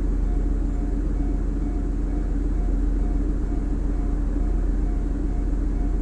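Japanese level-crossing alarm ringing its repeating electronic ding about twice a second, heard from inside a car waiting at the crossing, over a steady low rumble.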